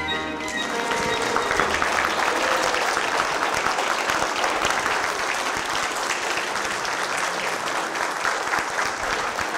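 Audience applauding, swelling about a second in as the last notes of orchestral music fade out.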